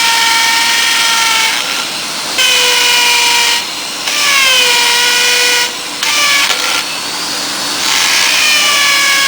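Electric power tool whining in repeated bursts of one to two seconds, about four times; each time the pitch drops as it takes load, then holds steady until it is let off.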